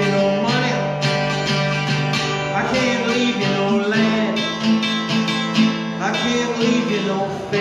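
Archtop guitar strummed in a steady rhythm under a man's singing voice: a solo folk-country song performed live.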